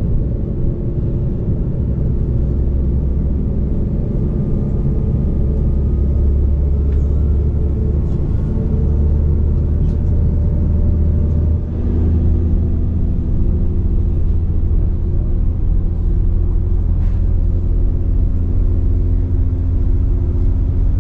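Diesel passenger train running along the line, heard from inside the carriage: a steady low rumble with engine hum. The engine note changes about twelve seconds in, and there are a few faint clicks.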